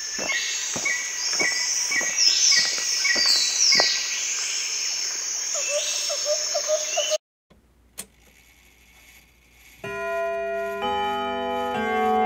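Shrill insect buzzing with repeated falling sweeps over a regular tick about twice a second. It cuts off suddenly about seven seconds in, and after a pause, held music chords begin near the end.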